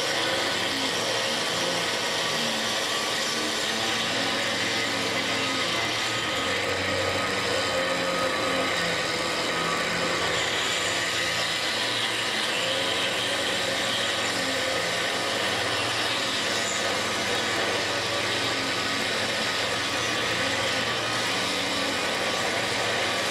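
Motor-driven grinding machinery running steadily, a continuous whirring hiss over a low hum, as glass bottle blanks are ground.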